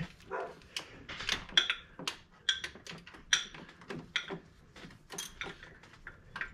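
Socket wrench ratcheting in short, irregular strokes as bolts on the engine's front belt drive are tightened toward their torque spec. Scattered metallic clicks and clinks, some with a brief ring.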